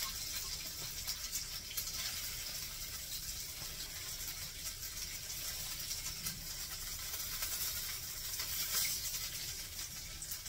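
Flour-coated hamburger patties frying in a skillet: a steady sizzling hiss with scattered small crackles.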